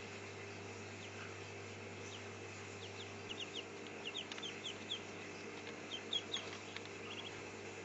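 A group of eleven-day-old ducklings giving short, high peeps, scattered at first and coming in quick runs around the middle and again about six seconds in, over a steady low hum.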